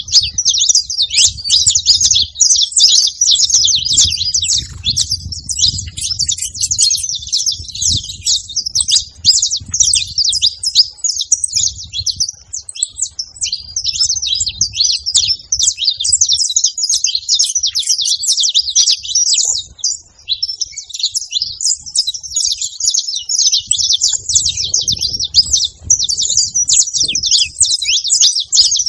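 Saffron finch singing, a fast, nearly unbroken string of high chirps and trills with only a brief pause partway through.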